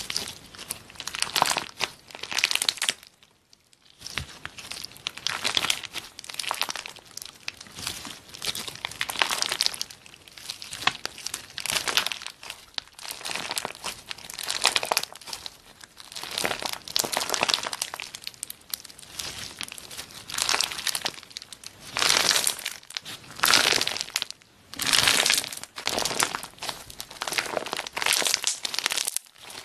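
Clear slime loaded with small rose-shaped charms being squeezed, stretched and pressed by hand, giving a run of irregular crackling bursts with a short pause about three seconds in.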